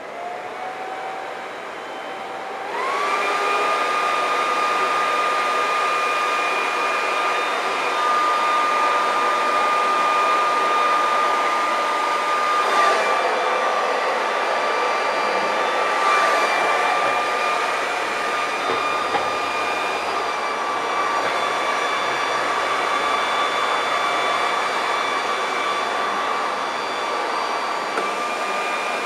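Handheld electric blower running into the intake of a homemade turbojet to spin it up for a start. Its whine rises at first, then steps up louder and higher about three seconds in and holds steady. This is a start attempt in which the engine does not light.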